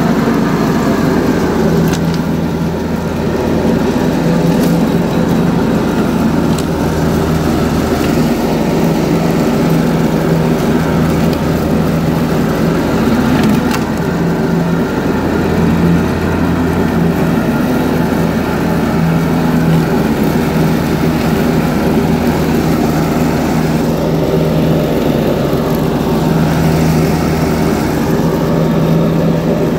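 John Deere 445 garden tractor's engine and mower deck running steadily while cutting wet, tall grass.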